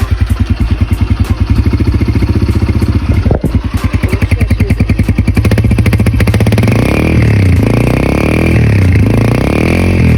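2022 Yamaha TT-R125's single-cylinder four-stroke engine running, idling at first with each firing stroke heard separately, then revved repeatedly from about six seconds in, the pitch rising and falling with each blip of the throttle.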